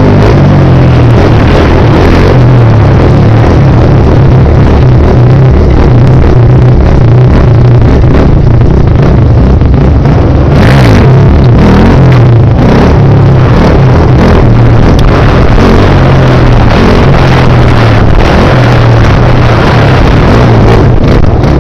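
Suzuki QuadSport Z400 ATV's engine running and revving as it is ridden along a road, loud.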